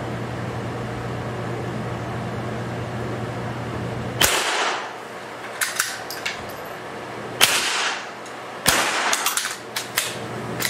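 Three rifle shots in an indoor range, about four, seven and nine seconds in, each a sharp report with a short echoing tail, with lighter clicks in between. A steady low hum runs under the first four seconds.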